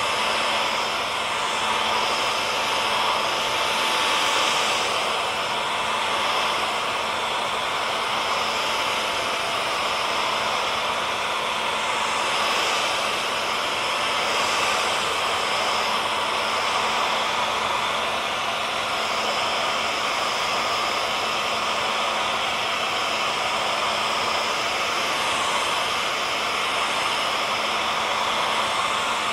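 Hair dryer running steadily: a constant rush of blown air with a steady whine from its fan motor.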